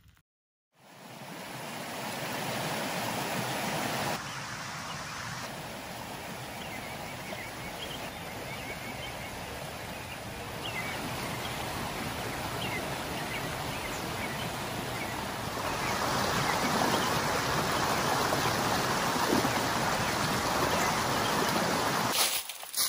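Shallow mountain stream rushing over stones: a steady rush of water that starts about a second in after a moment of silence, steps up and down in level a few times, and is loudest over the last several seconds.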